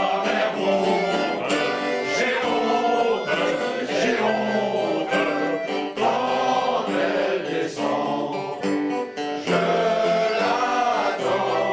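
A man singing into a microphone, live on stage, accompanied by a strummed acoustic guitar and an accordion.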